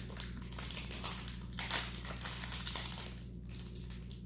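Candy bar wrapper crinkling as it is handled in the hands, a run of crackles that is loudest about two seconds in.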